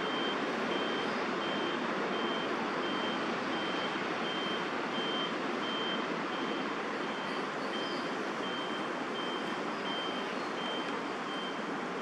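A vehicle's reversing alarm beeping evenly, a short high beep about three times every two seconds, over a steady wash of city traffic noise.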